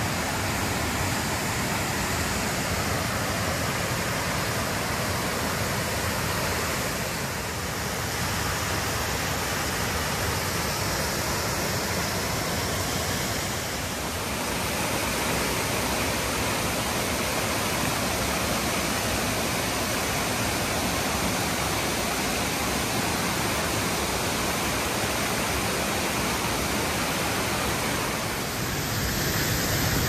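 Shizuku waterfall pouring steadily into its pool: an even rush of falling water that dips slightly in level a few times.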